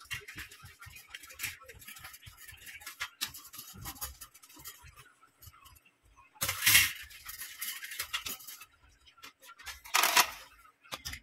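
Electric fan's wire guards being wiped with a cloth and handled: cloth rubbing on the wire grille with small metallic clicks and rattles, and two louder clattering rattles of the grille, about seven and ten seconds in.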